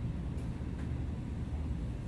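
Steady low rumble of background noise, with two faint clicks from hand work on the mower's blade bolts about a third of a second and just under a second in.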